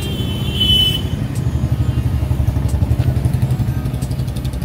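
Motorcycle engine running close by, a low pulsing beat that grows strongest in the middle and eases off near the end.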